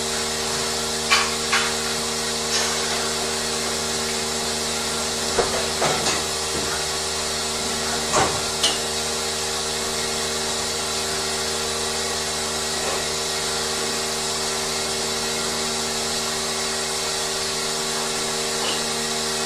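Dairy barn machinery running with a steady hum and hiss, with a few sharp knocks in the first half.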